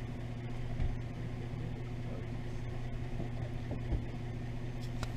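Steady low hum of a car idling, heard from inside the cabin, with a couple of faint knocks.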